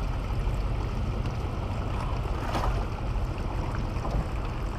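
Steady wind buffeting the microphone, heard as a low rumble, with faint distant voices.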